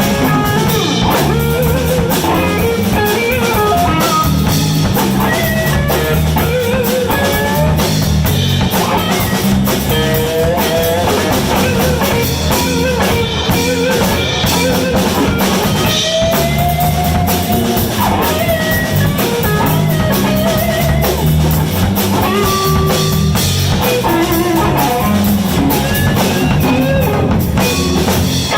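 Live blues band playing an instrumental passage: a lead guitar plays bending, sliding notes over bass and a drum kit, at a steady loud level.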